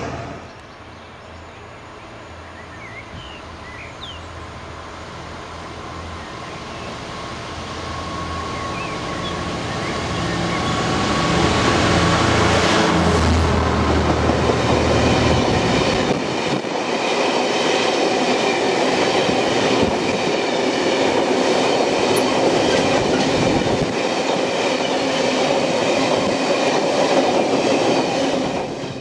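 Diesel-hauled freight train approaching and passing close by: the locomotive's low engine sound grows louder over the first dozen seconds and goes past, then a long rake of bogie tank wagons rolls by with a steady rumble of wheels on rail and a faint clickety-clack.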